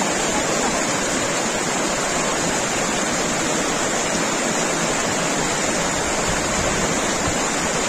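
Steady rush of a river's flowing water, an even hiss that does not change.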